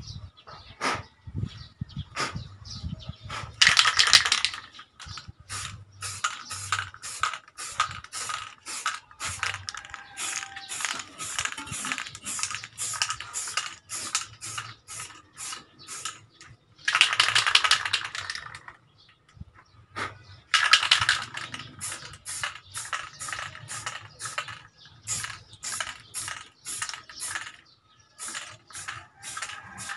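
Aerosol can of Samurai high-temperature spray paint spraying an exhaust pipe in short repeated bursts, about two or three a second, with three longer sprays of a second or more, one about four seconds in and two a little past the middle.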